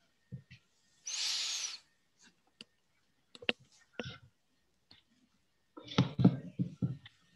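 Scattered faint clicks with a short breathy rush of noise about a second in, then a brief low muffled mumble mixed with clicks near the end.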